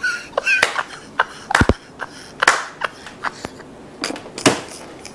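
Scattered short knocks and clicks at irregular spacing over faint background noise, with a duller, deeper thump about a second and a half in.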